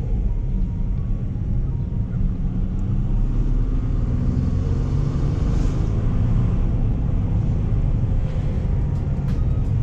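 Ford Ranger pickup driving, a steady engine and road rumble heard from inside the cab. The engine note rises a little around the middle.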